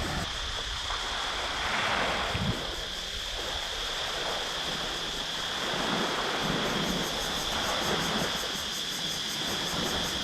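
Sea waves washing onto a beach in slow swells, with wind buffeting the microphone and a steady high whine underneath.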